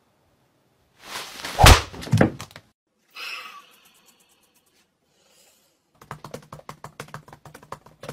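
A loud thump about a second and a half in, followed near the end by a fast run of clicks from typing on a laptop keyboard.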